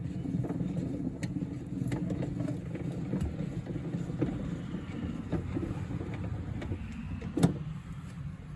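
Spare-tire hoist under a 2014 Dodge Durango being cranked with a tire iron to lower the spare. Scattered light clicks and scrapes of the mechanism over a steady low rumble, with one sharper knock near the end.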